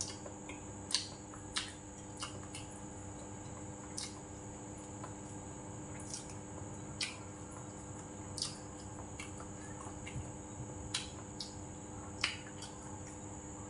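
Close-up chewing of braised egg and rice: scattered wet mouth smacks and clicks, about one every second or so, over a steady faint background hum.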